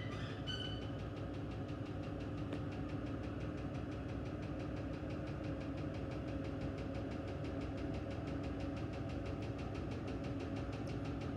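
Electrolux Ecologic 12 kg washing machine running: a steady motor hum with a fast, even rattle. There are a couple of short beeps right at the start.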